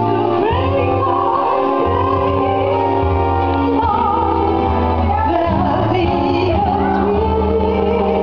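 A woman singing a melody with vibrato into a microphone, over amplified backing music with sustained bass notes.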